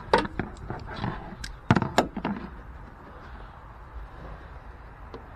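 A quick series of sharp clicks and hard plastic knocks over the first two and a half seconds as a car's plastic pollen filter housing is fitted into place, then only a low background hum.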